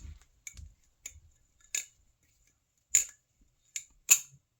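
Small metal parts being handled: sharp, irregular metallic clicks and clinks, about eight of them, with the loudest two near the end.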